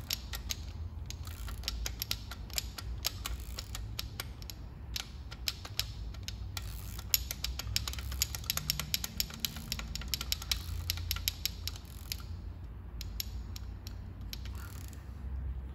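Socket ratchet clicking in fast runs as it turns a small-block Chevy 350 rocker arm adjusting nut, taking up loose valve lash on an intake rocker. The clicking thins out near the end.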